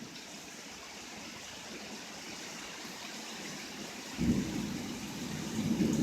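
Heavy rain falling with a steady hiss, then about four seconds in a low rumble of thunder starts suddenly and builds.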